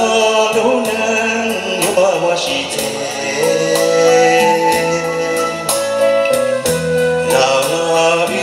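A man singing a Hmong song into a microphone, holding long wavering notes, over backing music with a bass line and drum beats.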